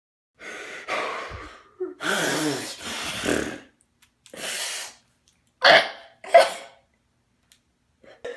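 A teenage boy sobbing in ragged, breathy bursts with catches of breath, ending in two short, sharp sobs near the end.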